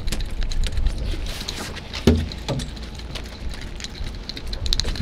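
Low rumble of wind and sea on a fishing boat's deck, with scattered light clicks and taps from the tackle and deck, two short creaks about two seconds in, and a quick run of ticks near the end.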